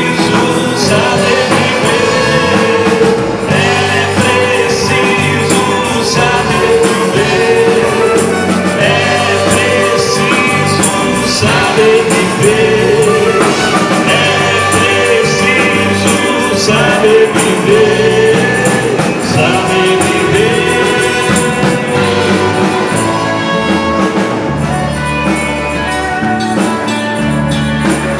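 A live band plays a song with singing: electric bass, electric guitar, tambourine, acoustic guitar and saxophones.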